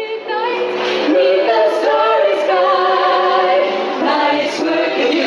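A choir of mostly women's voices singing together into microphones, holding long chords, with a brief break about four seconds in.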